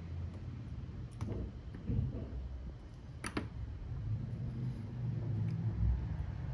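A few sharp clicks and light ticks of small repair tools working on an iPhone X, the loudest about three seconds in, over a steady low hum.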